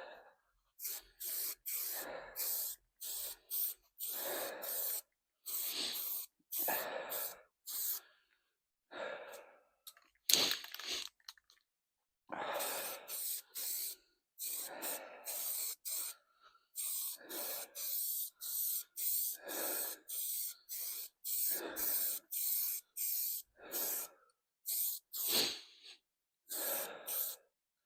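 Aerosol can of high-build primer spraying in short hissing bursts, roughly one a second with brief gaps between, one burst about ten seconds in louder than the rest.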